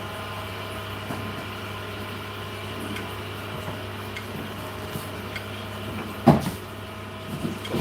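Whirlpool WFO3P33DLXUK dishwasher running mid-cycle, a steady hum with faint steady tones over it. A single sharp knock about six seconds in.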